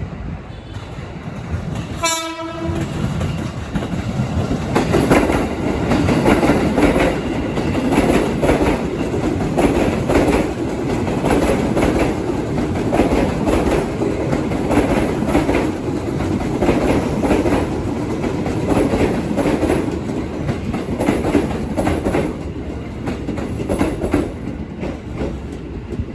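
A train sounds one short horn blast about two seconds in, then runs past with its wheels clattering rhythmically over the rail joints for about twenty seconds before the clatter fades near the end.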